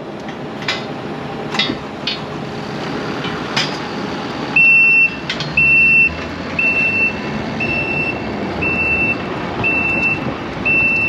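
Diesel farm machine running with a few metal clanks, then from a little under halfway in its reversing alarm beeps steadily, one high beep about every second, as it backs up.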